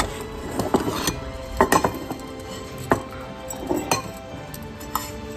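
Cats eating dry kibble from shallow stainless-steel bowls: irregular small clinks and clicks of kibble and teeth against the metal and of bowls shifting on the wooden floor, over background music.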